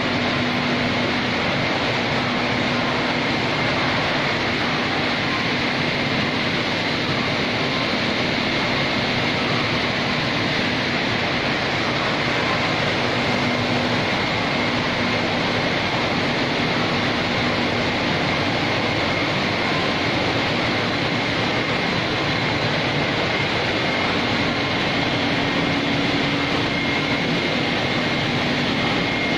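Wire electroplating production line running: a steady, unchanging machine noise with a faint low hum and a faint high whine.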